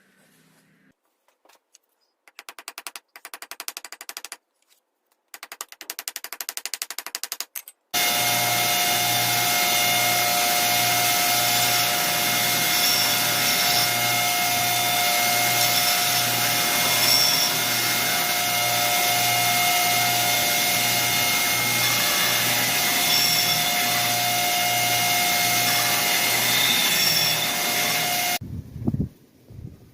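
Two short spells of rapid clicking, then a power tool running steadily with a loud hiss for about twenty seconds, stopping abruptly near the end.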